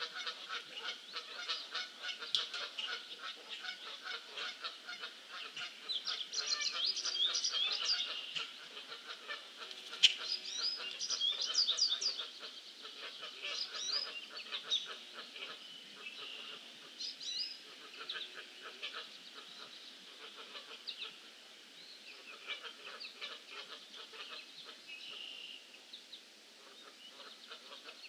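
Wild birds calling and singing at a pond: a steady run of short, quickly repeated calls with higher whistled song phrases over them, busiest in the first half and thinning out later. A single sharp click stands out about ten seconds in.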